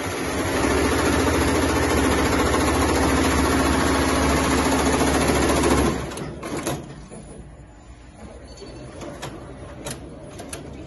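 Tajima multi-head embroidery machine running, stitching with a fast, even chatter. About six seconds in the sound drops sharply to a much quieter run with a few scattered clicks.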